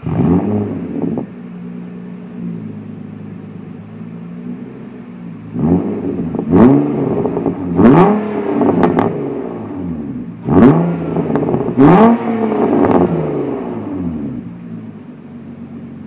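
2005 Nissan Altima SE 3.5's V6, fitted with a resonator delete and dual Greddy straight-through mufflers, free-revved through the exhaust. It rises in revs briefly at the start and settles to idle. From about five and a half seconds in it is blipped about seven times in quick succession, each rev rising and falling, then it drops back to idle.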